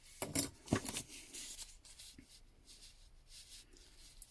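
A metal flint starter being handled and tried: a couple of short clicks, then light scraping rasps of the flint against its striker.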